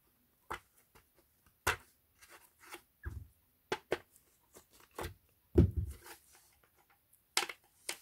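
Sticker residue being scraped and picked off a plastic vacuum cleaner handle with fingernails and a screwdriver tip: scattered short scratches and clicks, with a heavier thump a little after halfway.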